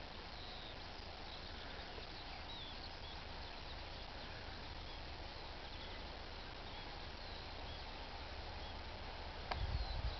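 Rural ambience: small birds chirping over a steady low hiss and rumble. A click and a few low thumps come near the end.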